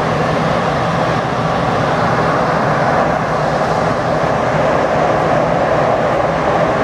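Steady, loud running noise heard from inside an electric DART light rail car travelling through an underground tunnel: an unbroken rumble of wheels on rail with a low steady hum beneath it.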